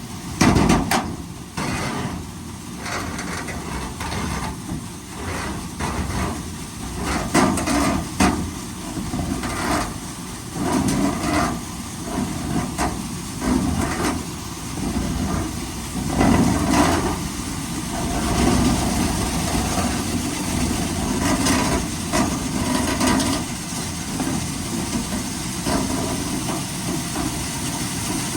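Duct-cleaning vacuum running steadily with a low rumble, while a cleaning tool knocks and rattles irregularly inside the ductwork; the knocking thins out about two-thirds of the way through.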